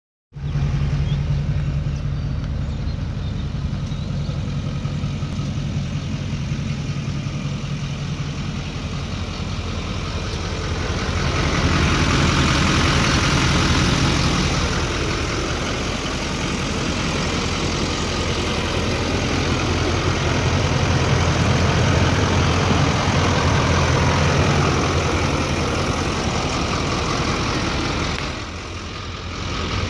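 Turbocharged Duramax diesel V8 in a lifted pickup idling steadily through a stainless dual exhaust with tall stacks. It grows louder twice along the way and dips briefly near the end.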